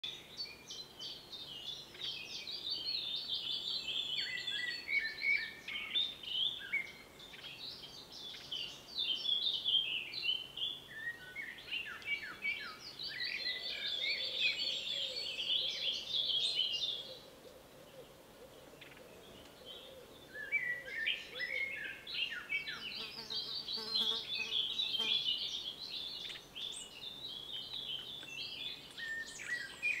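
Small songbirds chirping and singing in a dense, overlapping chorus of quick high notes and trills, with a pause of about three seconds a little past the middle.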